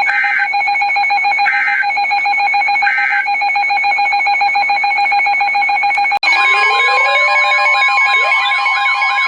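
Emergency Alert System end-of-message data bursts: three short digital squawks about a second and a half apart, over a steady droning tone. About six seconds in, a cut brings a long steady alert tone with warbling tones layered on it, leading into the next warning.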